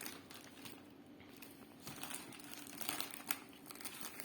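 Polythene packaging wrap crinkling and crackling in faint, scattered bursts as the package is handled.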